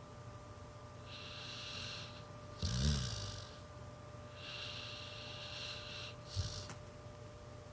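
Pit bull snoring in her sleep: slow hissing breaths, with one short low snore about three seconds in and a brief snort near the end.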